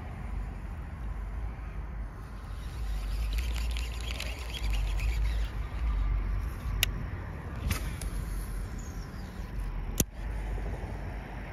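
Low rumble of wind on the microphone with a baitcasting rod and reel being cast and reeled. A spell of fast, fine ticking starts about two seconds in and lasts a few seconds, and three sharp clicks come later, the last one loudest.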